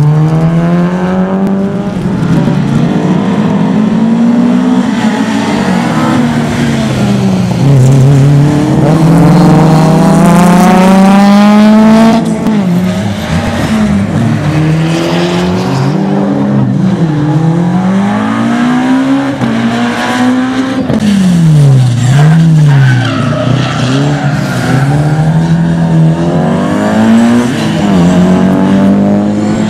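Rally car engines revving hard, the note climbing through the gears and dropping off again and again as the cars accelerate, brake and turn, with some tyre squeal.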